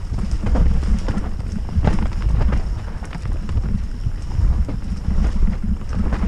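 Mountain bike descending a rough dirt trail, heard from a helmet-mounted camera. Wind buffets the microphone over a steady rumble from the tyres. The bike's chain and frame give off many irregular clattering knocks as it hits roots and bumps.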